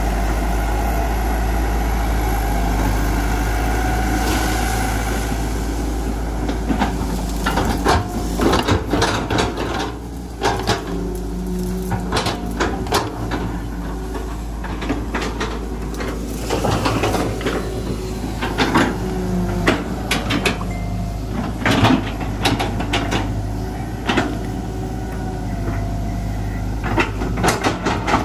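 Hitachi EX120 hydraulic excavator's diesel engine running steadily; from about seven seconds in, irregular clanks and knocks from the bucket and linkage as it digs and pushes soil.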